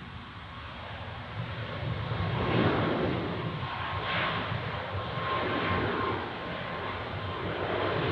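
Boeing 737 jet engines running at takeoff thrust: a rough jet noise that swells about two and a half seconds in, with a faint steady whine.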